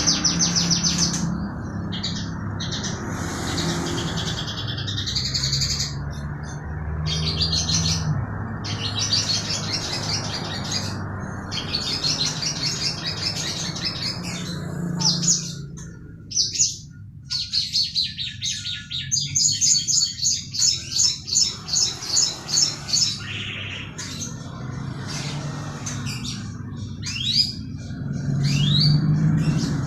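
Mongolian lark singing a long, varied song of rapid trills and quick runs of repeated high notes, with a few fast rising whistles near the end. A low steady hum runs underneath.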